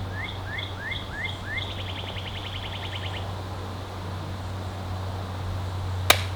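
A songbird sings a phrase of five or six quick rising chirps, then a fast dry trill lasting about a second and a half, over a steady low hum. A single sharp click comes just before the end.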